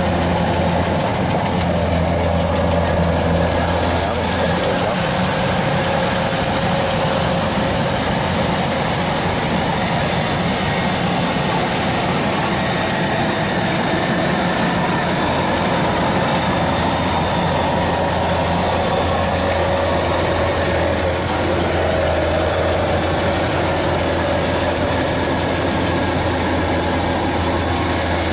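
Kubota DC-105X rice combine harvester's diesel engine and machinery running steadily with a constant low drone.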